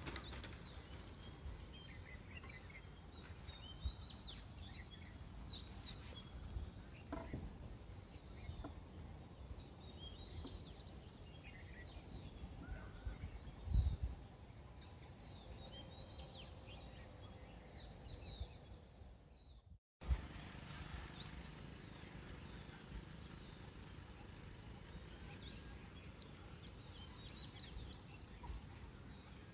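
Forest birds chirping and calling, many short high chirps scattered throughout, over a low rumble with occasional thumps, the loudest about fourteen seconds in. The sound cuts out briefly just before twenty seconds in.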